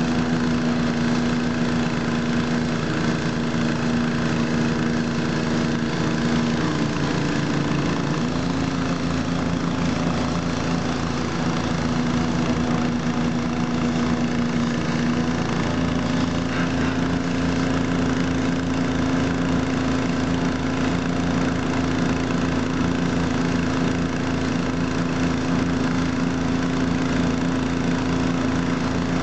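Pressure washer running steadily with a constant hum, its pitch stepping slightly about a quarter of the way in and again near the middle, over the hiss of the spray jet on the car's wheels and bodywork.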